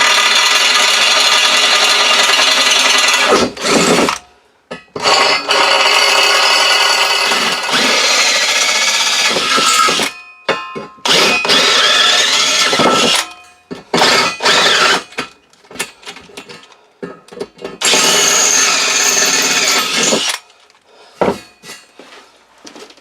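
Electric drill boring 8.5 mm holes through steel in about five bursts of a few seconds each. These holes enlarge the pilot holes to take 8 mm bolts.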